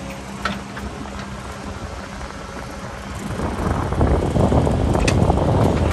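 Cat 308 mini excavator's diesel engine running steadily, then getting louder about three seconds in as it works harder. Two sharp knocks, about half a second and five seconds in.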